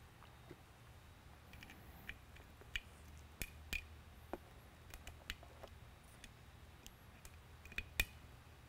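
Faint, scattered light clicks and ticks of hands handling a PAR-36 LED lamp and attaching power leads to its terminals, with a sharper click near the end as it is connected.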